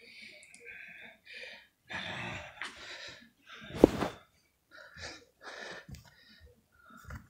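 A person's short breathy mouth sounds and gasps, voiced as the plush character eating ice cream, broken up by pauses. About four seconds in there is one sharp bump.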